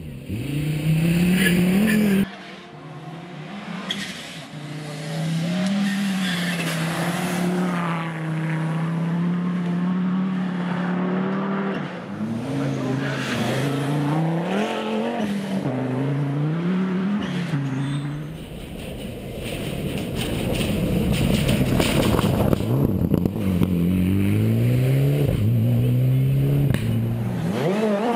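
Rally car engines at full throttle, the note climbing and dropping again and again with gear changes and lifts, in short clips cut from one car to the next. In the last third one car passes close and loud, with a rush of tyre and engine noise.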